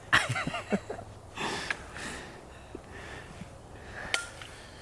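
A person's short, high, wavering vocal sound without words, followed by breathing and sniffing. There is a single sharp click about four seconds in.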